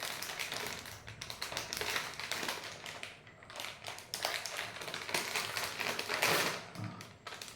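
Plastic snack packet of crunchy coconut bites being torn open and handled, giving a dense, irregular crinkling and crackling.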